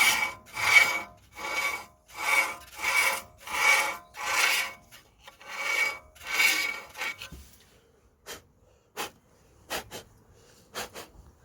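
Scrubbing strokes on a car's brake disc, about one every 0.7 s, to clean debris off it; the scrubbing stops about seven seconds in, followed by a few faint clicks and taps.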